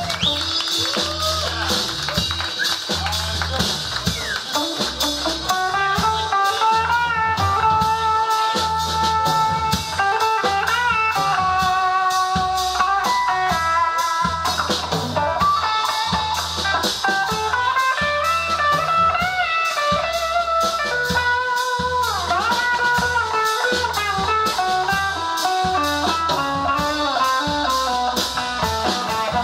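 Live band playing an instrumental section: an electric guitar solo with bent notes over bass and drum kit, with no horns or vocals.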